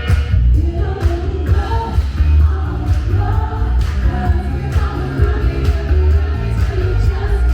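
Soul music playing with a singing voice over a heavy, steady beat.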